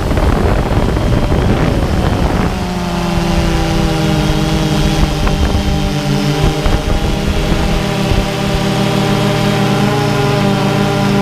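DJI Phantom 2 quadcopter's electric motors and propellers in flight, making a steady multi-tone hum. A rushing noise covers it for the first two or three seconds, then the hum is clear and even.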